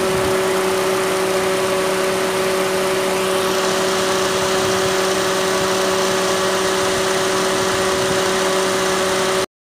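Proton Satria Neo's electric radiator cooling fan running steadily, a rush of air with a steady hum. It cuts off abruptly near the end.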